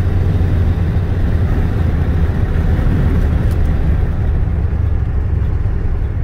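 A 1992 Ford F-150 driving, heard from inside the cab: a steady low drone of engine and road noise.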